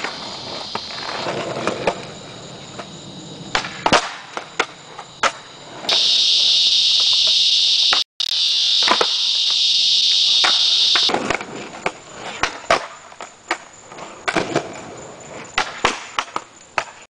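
Skateboard on concrete: wheels rolling, with sharp clacks of board pops and landings at irregular intervals. For about five seconds in the middle, a loud steady high-pitched insect buzz is the loudest sound, cut off for an instant partway through.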